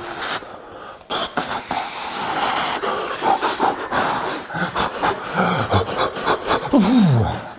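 Two people blowing repeatedly on pieces of freshly baked cookie to cool them: a run of breathy puffs of air. Near the end come a couple of short, low, falling voiced sounds.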